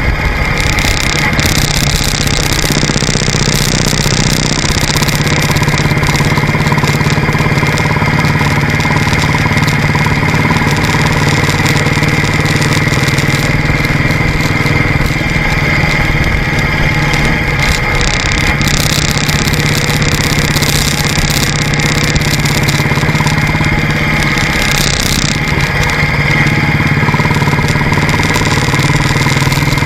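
Royal Enfield motorcycle running steadily at road speed, its engine note under a constant rush of wind and road noise.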